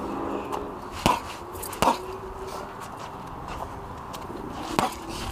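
Boxing gloves landing straight right hands on a hanging heavy bag: a punch about a second in, another about a second later, and two more close together near the end, each a short sharp thud.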